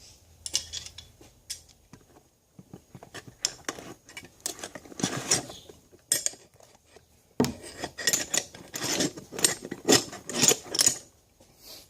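Metal hand tools clinking, rattling and knocking together as they are handled and pulled from a tool bag's pockets, in irregular bunches of sharp clicks with a little scraping.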